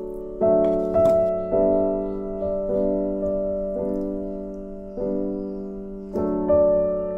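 Background piano music: slow, gentle chords, each struck and left to fade before the next.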